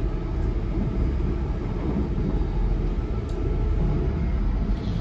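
Passenger train running along the line, a steady rumble heard from inside the carriage.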